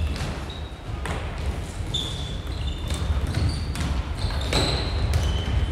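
Floorball play in a sports hall: shoes squeak briefly and high on the wooden floor, and plastic sticks and ball clack sharply several times, over a steady low rumble.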